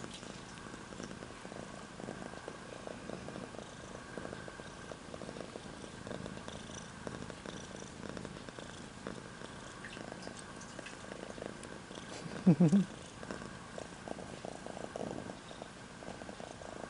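Kitten purring steadily as it is stroked. About twelve seconds in, a brief, louder voiced sound rises over the purr.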